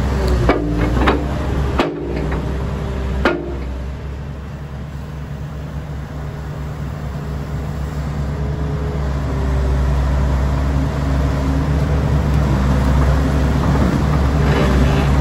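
Kobelco SK400LC II tracked excavator's diesel engine idling steadily, growing gradually louder over the second half. A few sharp knocks sound in the first few seconds.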